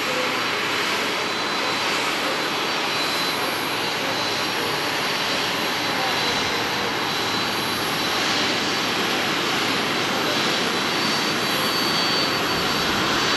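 Boeing 767-300ER's General Electric CF6-80C2 turbofans at taxi power: a steady rushing hiss with a thin high whine, growing slightly louder near the end as the engine comes closer.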